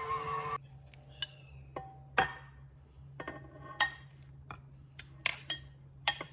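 Kitchen utensils clinking against dishes: a dozen or so sharp, irregular taps with a short ring. A steady hum cuts off about half a second in.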